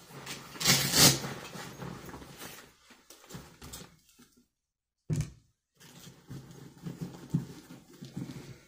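Hands rummaging through a nylon range bag: fabric rustling and contents shifting, loudest about a second in, with a short knock about five seconds in.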